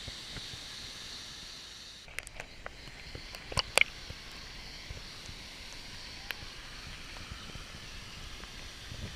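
Steady rushing hiss of a waterfall, with a few sharp clicks and knocks between about two and four seconds in, the loudest near four seconds.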